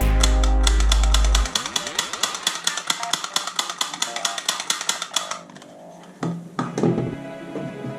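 Toy gun firing a rapid burst, a fast rattle of about ten shots a second with a heavy hum under the first second and a half, that stops about five and a half seconds in. Two thumps follow.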